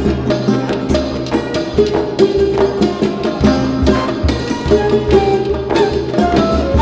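Background music: a melody over a steady percussion beat.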